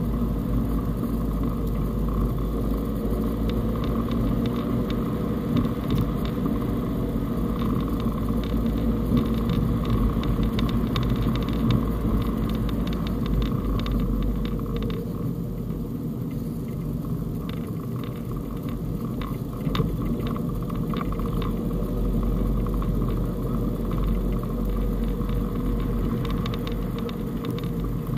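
Fiat Panda Cross driving on a snowy road, heard from inside the cabin: steady engine and road rumble, with scattered light crackles and clicks.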